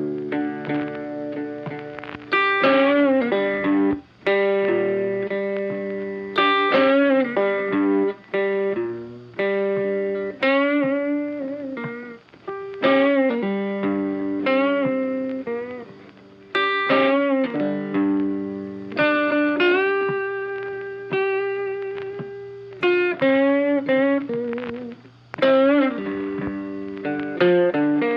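Funky background music led by plucked guitar, playing phrases of notes that strike and fade, repeating every few seconds.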